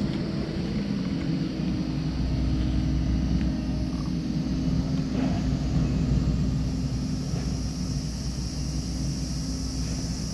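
Steady low mechanical rumble with a constant hum, like a distant engine running, and a steady high hiss above it that grows a little stronger about halfway through.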